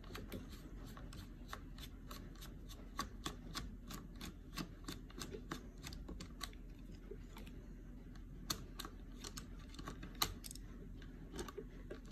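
Light, irregular clicking and ticking, a few clicks a second, as a screwdriver turns a screw out of the plastic battery housing of a Dyson V8 stick vacuum.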